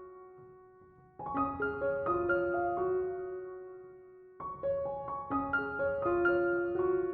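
Background music: gentle piano phrases of struck notes that ring and fade, with a brief lull about a second in and another before a new phrase about four seconds in.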